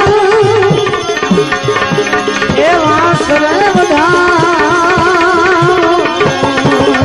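Bhajan music: a tabla plays a rhythm, its bass drum strokes sliding in pitch, under a wavering melodic line and a steady held tone.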